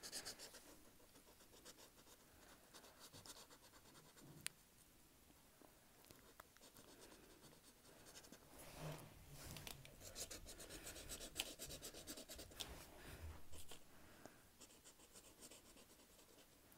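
Felt-tip marker scratching faintly across paper in repeated colouring strokes, busier in the second half, with a single light tick about four seconds in.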